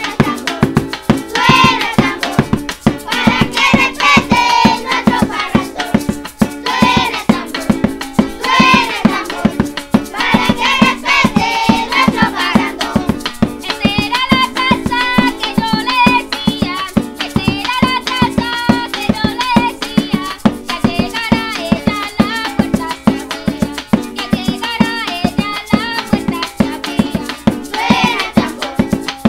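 A group of children singing a song together over a hand drum and shaken maracas, which keep a fast, even rhythm.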